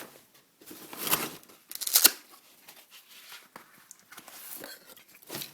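Items being handled and taken out of a pocket of a bag: fabric rustling and gear scraping, with two louder rasping bursts about one and two seconds in and a smaller one near the end.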